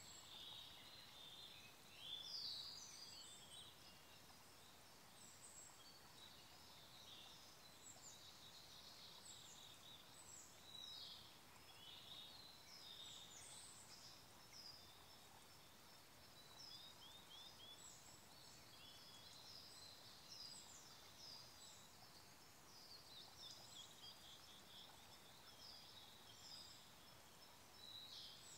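Several forest songbirds singing almost without a break, high chirps and quick trills, the loudest call about two seconds in, over the faint steady murmur of a small stream.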